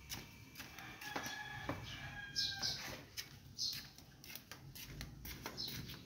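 Short high bird chirps recurring about once a second, with scattered light clicks and knocks.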